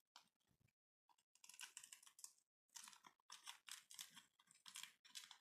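Faint crinkling and rustling of a thin plastic wrapper being handled and slipped back over a small adapter, in short irregular bursts with brief pauses.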